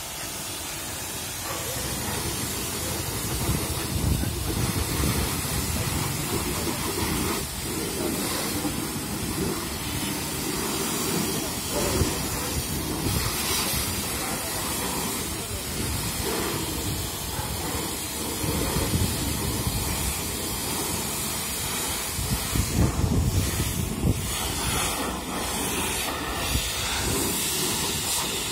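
High-pressure car wash sprayer running: a steady hissing jet with a low rumble underneath and a few brief louder spurts.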